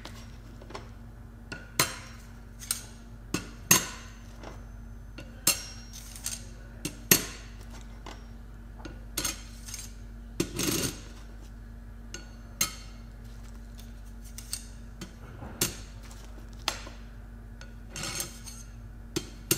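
Steel and friction clutch plates from a ZF 6HP26 automatic transmission clinking against each other as they are handled and stacked: irregular sharp metallic clicks, roughly one a second, some ringing briefly.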